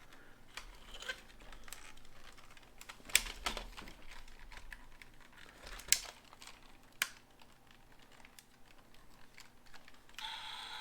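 Hard plastic parts of a White Tiger Zord toy being handled and snapped into place: scattered light clicks, with three sharper clicks. A steady hum comes in near the end.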